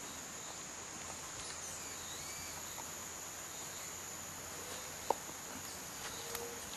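A steady, high-pitched drone of tropical insects, with faint brief bird-like whistles about a second and a half in and a single sharp tick at about five seconds.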